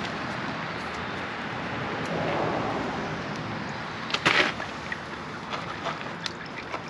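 Engine oil trickling steadily from the open DCT clutch-filter housing of a Honda NC700X into a plastic drain pan, with one short clatter about four seconds in and a few light clicks after it.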